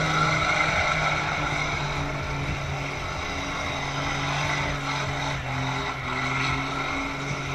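Car engine held at high revs during a burnout, a steady drone that wavers slightly in pitch, over the rushing hiss of the spinning rear tyres.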